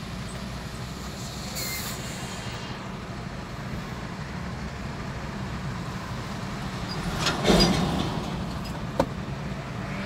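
Car idling at a standstill, heard from inside the cabin as a steady low hum. A brief louder rush comes about seven and a half seconds in, and a sharp click about a second later.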